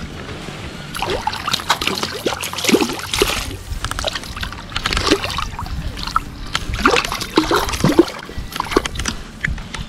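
A small hooked rainbow trout splashing at the river surface as it is reeled in close, with irregular splashes, sloshing and bubbly plops of water.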